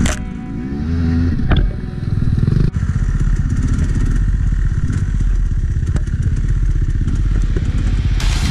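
Enduro dirt bike engine heard up close, chugging at low speed along a rough trail, with a few short rises in revs in the first couple of seconds and a sharp knock along the way.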